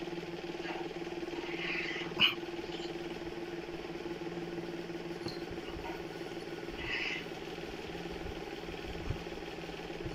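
Two cats play-fighting give short, high squeaks about two seconds in and again about seven seconds in. A sharp click comes just after the first squeak. A steady low hum runs underneath.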